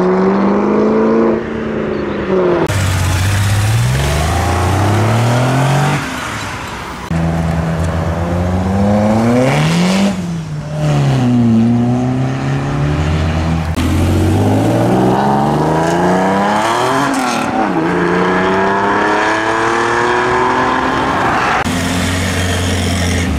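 Classic and sports car engines accelerating away one after another, each pitch climbing and then dropping back several times as the cars rev up and change gear.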